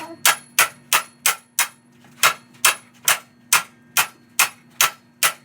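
Steady hammering on steel: sharp metal-on-metal blows, about two or three a second with a brief pause about two seconds in, each with a short ring. The blows are a hammer driving a punch to knock a seized engine pulley loose.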